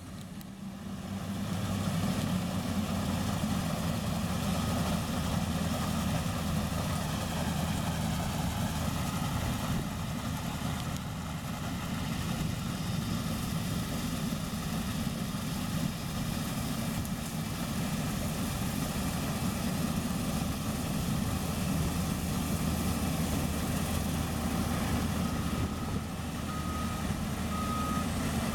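Heavy diesel farm machine engine running steadily under load, swelling up over the first couple of seconds. Near the end a warning beeper starts sounding evenly about once a second, like a reversing alarm.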